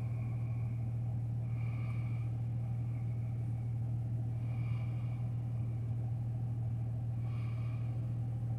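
A steady low hum, with faint short high tones coming back about every two and a half seconds.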